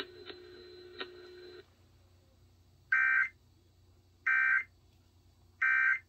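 Emergency Alert System end-of-message signal from a NOAA Weather Radio broadcast: three short bursts of warbling SAME data tones, about 1.4 seconds apart, marking the end of the warning. Before them a faint steady tone with two clicks cuts off about a second and a half in.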